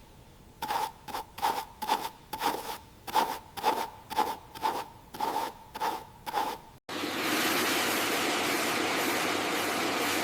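Restoration tool work: a run of about a dozen sharp rhythmic strokes, roughly two a second, each with a ringing metallic note. About two-thirds of the way through it cuts off abruptly to a steady rushing hiss.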